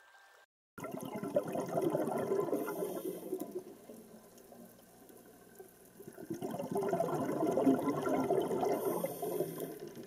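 Water sounds in two swells, the first starting about a second in and the second about six and a half seconds in, with a quieter stretch between.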